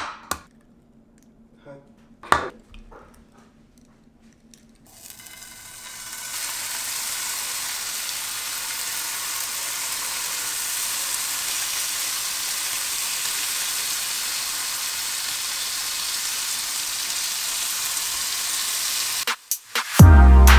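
A couple of sharp knocks as wooden bowls are set on the countertop, then bacon strips sizzling in a frying pan. The sizzle starts about five seconds in, builds for a second or so, then holds steady and cuts off near the end.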